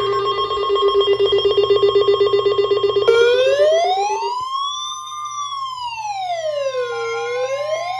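Electronic emergency alert sounds that open a severe thunderstorm warning. A rapidly pulsing alarm tone sounds for about three seconds, then a siren wails slowly up and down, rising, falling and rising again, over a steady held tone.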